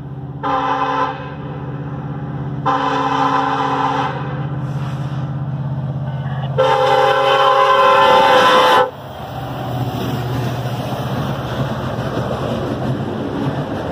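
KCS 4006, an EMD SD70ACe diesel locomotive, sounds its horn three times as it approaches: a short blast about half a second in, a longer one around three seconds, and a long one from about seven to nine seconds, over the steady drone of its diesel engine. After the last blast the locomotive passes and the rumble of loaded flatcars rolling by takes over.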